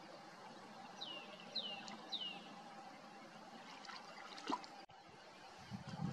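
Faint, steady water ambience on a calm river with otters swimming. Three short falling whistled calls sound about a second in, a single click comes at about four and a half seconds, and a louder low sound starts near the end.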